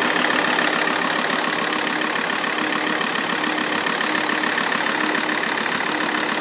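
Alfa Romeo 159 2.4 JTDm five-cylinder diesel idling steadily after a cold start, with a steady high-pitched squeak over the engine note. The owner says this squeak comes only on cold start and fades after about a minute.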